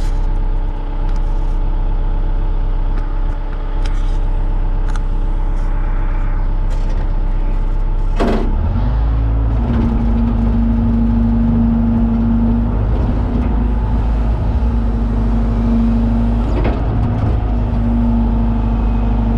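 John Deere 190E excavator's diesel engine running steadily, then about eight seconds in it comes up under load and a steady whine from the working hydraulics comes and goes in long stretches as the machine digs.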